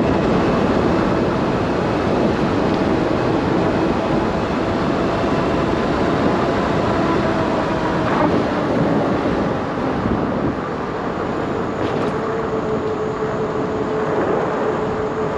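Steady wind and road noise from riding a Himiway Cobra fat-tyre e-bike along a paved road, with a faint steady whine running under it.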